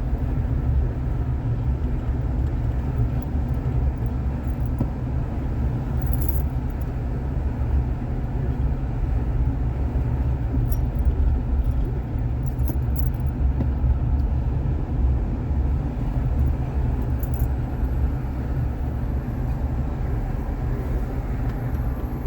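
A car driving on city streets: steady low rumble of road and engine noise, with a few faint ticks.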